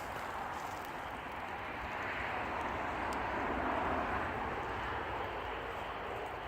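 Highway traffic: tyre and engine noise of passing vehicles, swelling to a peak about four seconds in and easing off again.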